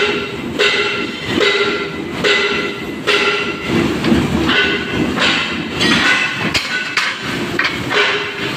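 Durma CNC press brake working in a repeating cycle: a metallic clank with a brief squealing whine about once a second, at slightly irregular intervals, over a steady machine rumble.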